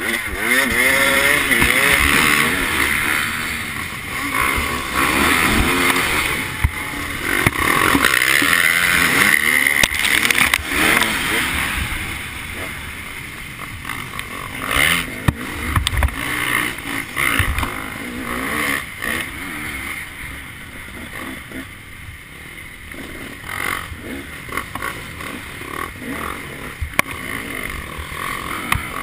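Dirt bike engines revving hard at a race start, their pitch climbing and dropping through gear changes. After about twelve seconds the sound eases to the camera bike's own engine running at varying throttle on the trail.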